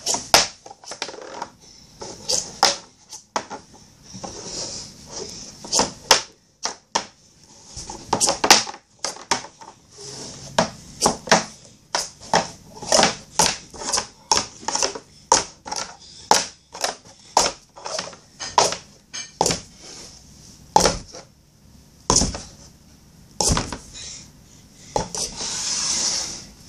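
Hard plastic cups clacking against each other and on a wooden tabletop as they are stacked into three-cup pyramids and slid back down into a column: a long run of quick, uneven clicks, with a short sliding hiss twice.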